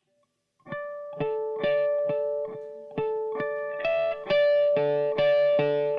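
Electric guitar playing a picked single-note intro, starting under a second in, a new note about every half second, with each note ringing on under the next.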